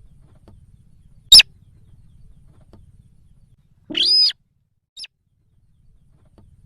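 Lure call of the sintar, a paddy-field crake: a short, sharp note, then about two and a half seconds later a longer, fuller call, with a faint short note a second after it, over a faint low hum.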